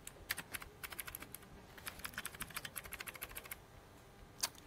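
Laptop keyboard keys being tapped: a quick run of light clicks, then a single louder keystroke near the end.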